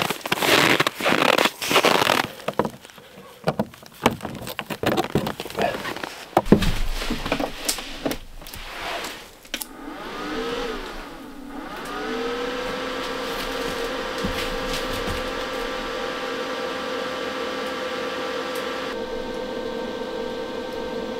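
Boots crunching in snow for the first couple of seconds, then scattered handling knocks. About ten seconds in, a motor whine wavers in pitch, then settles into a steady hum: the cooling fan of a Jackery portable power station running after it is plugged in to charge.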